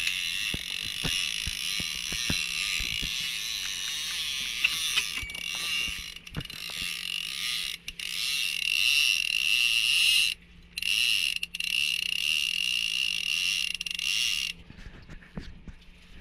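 Trolling reel's drag screaming as a hooked tuna runs line off: a steady high-pitched whine with sharp ratchet clicks, cutting out briefly twice after about ten seconds and dropping away near the end.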